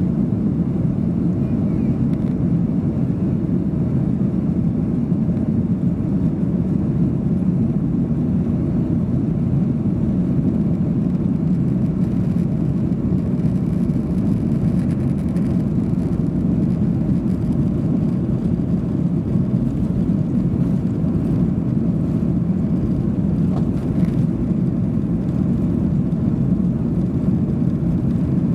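Steady low rumble inside the cabin of a Boeing 737-800, its CFM56 engines running at an even, unchanging level.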